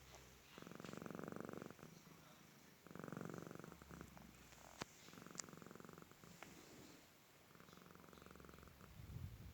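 Soft snoring in deep sleep: a fine rattle on each breath, four breaths about two and a half seconds apart, with a couple of faint clicks near the middle.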